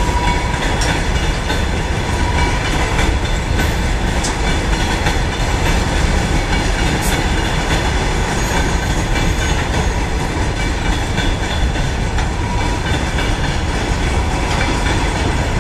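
Freight train's covered hopper wagons rolling past: a continuous loud rumble of steel wheels on the rails, with occasional clacks and a faint steady whine over it.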